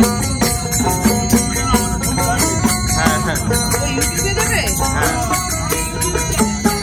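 Devotional kirtan music played on a strummed banjo, small hand cymbals (kartal) ringing on a steady beat, and a small hand drum.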